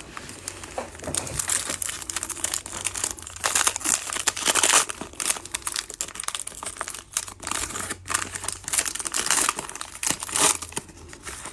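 Foil-lined plastic wrapper of a 2022 Topps Inception baseball card pack crinkling and tearing as it is pulled open by hand, with a dense, irregular crackle that is loudest about halfway through and again near the end.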